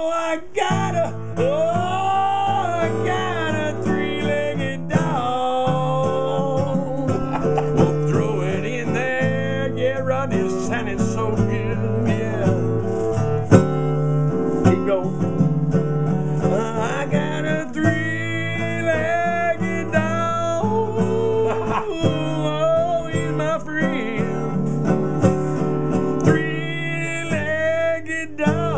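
Country song on strummed acoustic guitar, the chords steady throughout, with a wordless melody line bending and gliding over them.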